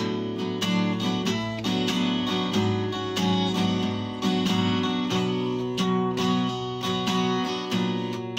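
Background music on acoustic guitar: a steady run of picked notes.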